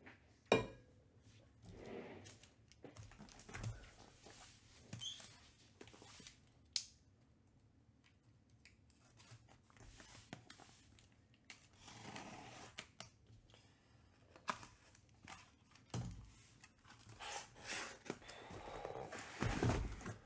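Trading card boxes and packs being opened by hand: packaging tearing and crinkling, with scattered clicks and knocks of handling. Two sharp clicks stand out, one just after the start and one about seven seconds in, and the rustling grows longer in the second half.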